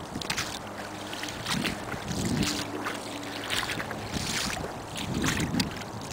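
Footsteps in rubber boots splashing through wet ground and shallow floodwater, a step about every half second to second.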